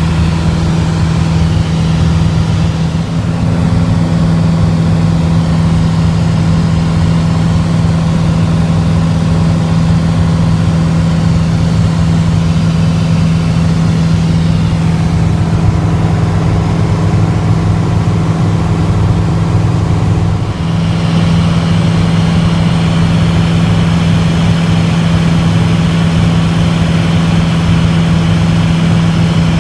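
Piper PA-28's single piston engine and propeller droning steadily in flight, heard from inside the cabin, with a brief dip about two-thirds of the way through.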